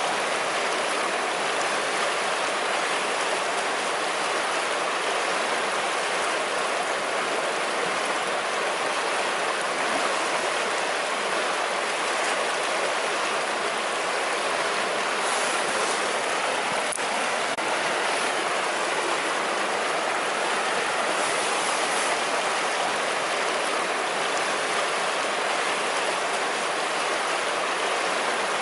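River water rushing and gurgling over stones in a steady, unbroken stream.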